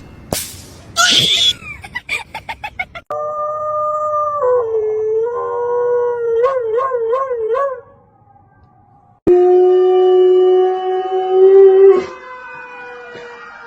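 Dog howling in long drawn-out notes, one of them wavering up and down in pitch. A brief loud noise and a quick run of clicks come first.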